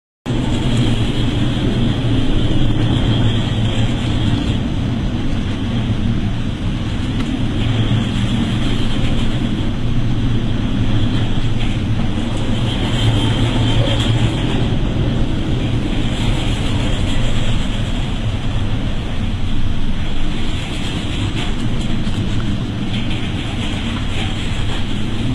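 Boat engine running with a steady low drone, under wind buffeting the microphone and the rush of sea water. It starts abruptly and holds steady throughout.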